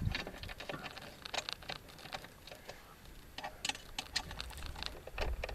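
Scattered light metallic clicks and clinks of bolts and nuts being handled and threaded by hand while fastening a wheel plate to a trimmer frame.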